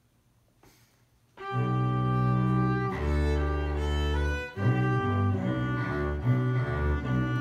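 A bowed double bass starts playing about a second and a half in, after a near-silent pause, sounding sustained low notes that change pitch every second or so, with a violin playing alongside.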